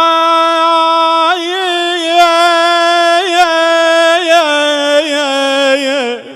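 A male voice holds one long note of an Iraqi mourning lament (naʿi) on a drawn-out vowel. Brief wavering ornaments come about once a second. The note sinks a little lower after about four seconds and breaks off just before the end.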